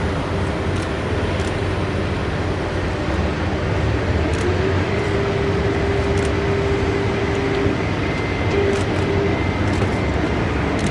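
Heavy vehicle engine running steadily, with a held whining tone that comes in about four seconds in and drops away about three seconds later.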